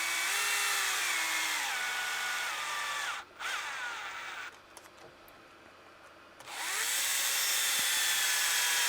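Cordless electric driver running screws in. Its motor whine drops in pitch in steps as the screw draws tight, then stops about three seconds in, followed by a short blip. After a pause, the driver spins up again near the end for a second run.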